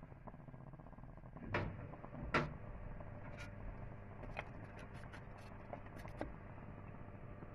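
Two sharp knocks about a second apart, then scattered light ticks and clicks over a low steady hum, from handling and cooking at a stovetop pot.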